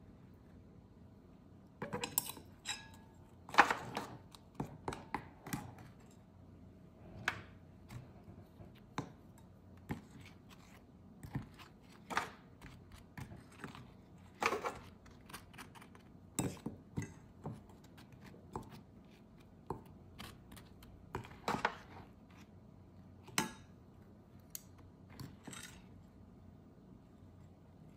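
Kitchen utensils and dishes clinking and tapping, irregular sharp knocks about once a second, a few ringing briefly, over a faint steady hum.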